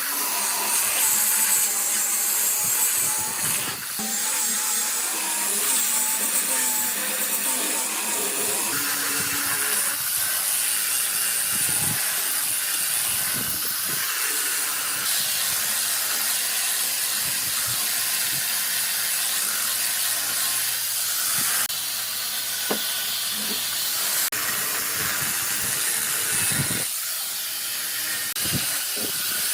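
Woodworking power tools running with a steady, hissing noise that changes abruptly several times, as the footage cuts between tasks.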